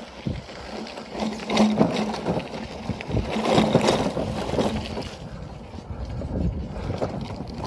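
Wind buffeting the microphone of a moving bicycle, with irregular knocks and rattles from the bike and its loaded front basket on the path.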